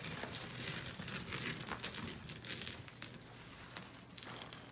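Packed snow and ice crunching and crackling in quick irregular bits, loudest in the first half and fading toward the end.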